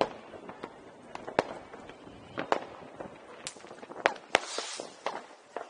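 New Year's Eve fireworks and firecrackers going off: irregular sharp bangs, some loud and close, others faint and distant. A brief hiss follows a loud bang about four and a half seconds in.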